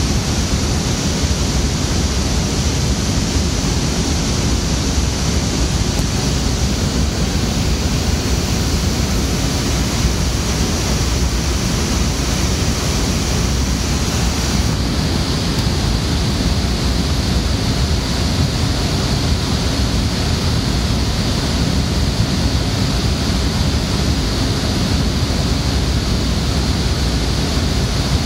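Loud, steady rush of data-centre noise: many server cooling fans and air handling blowing without let-up.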